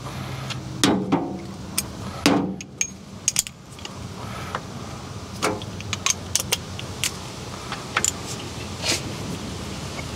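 Hand tools clinking and knocking against engine metal in irregular, sharp clicks and clanks while bolts and fittings on a diesel engine are worked loose. The loudest knocks come about one and two seconds in.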